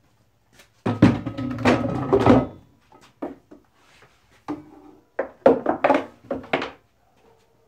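Knocks and clattering of a high-pressure air tank being set down into a wooden tank holder, with a long loud bout of bumping about a second in, then a run of smaller knocks as the tank's valve, gauge and fill hose are handled.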